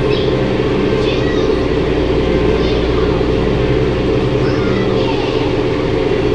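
Steady low hum that runs on unchanged, with faint scattered sounds above it.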